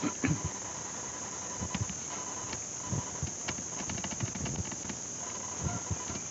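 A steady high-pitched background whine, with a run of light clicks from a computer mouse wheel as the document is scrolled, most of them about four seconds in.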